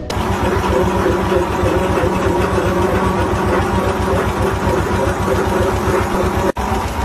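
Farm machinery running under power: a steady engine drone with a fast, even low pulse, dropping out for an instant near the end.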